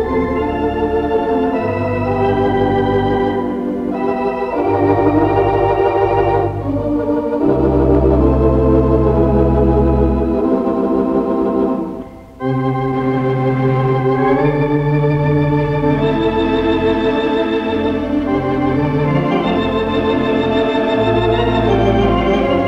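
Theatre organ music from the Gaumont Manchester's 4/14-rank Wurlitzer: sustained chords over deep bass notes, with a brief pause just past halfway. It is heard from an off-air mono tape recording of a radio broadcast.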